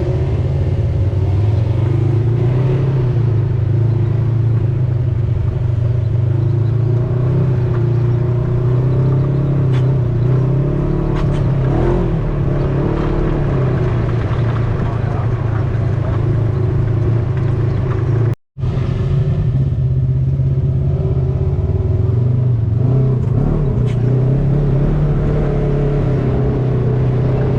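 Engine of an off-road tour vehicle running steadily under way, a continuous low drone with small changes in pitch as it speeds up and slows. The sound drops out completely for a moment about two-thirds through, then the same drone carries on.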